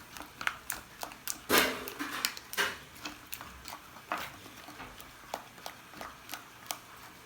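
Homemade slime being stirred in a pot: irregular sticky clicks and pops, with two louder wet smacks about a second and a half and two and a half seconds in.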